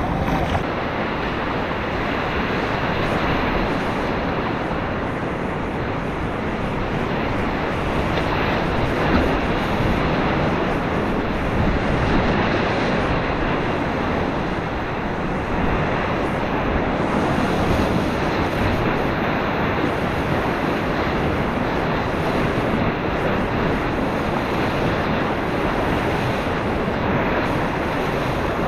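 Whitewater rapids rushing steadily, a continuous loud wash of churning river water, with low rumbling gusts on the microphone.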